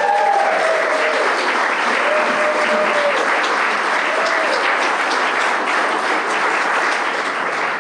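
Crowd applauding steadily, with a few drawn-out calls rising over the clapping in the first half.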